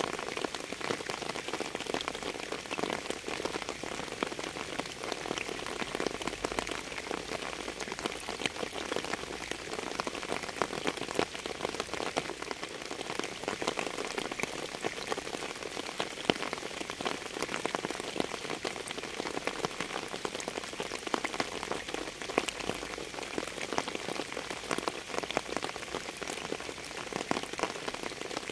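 Steady rain falling on a surface: an even hiss with a dense scatter of separate drop impacts, unchanging throughout.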